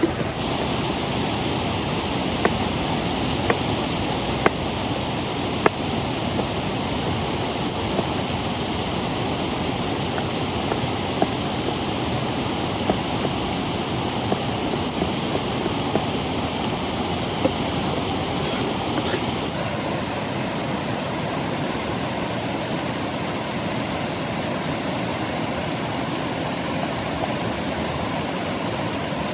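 Steady rushing hiss of rain and river water, with scattered sharp pops about once a second or two during the first two-thirds.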